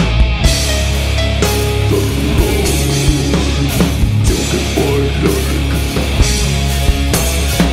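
Doom metal band playing live: heavy guitar and bass chords held over slow drum hits about once a second, with cymbal crashes.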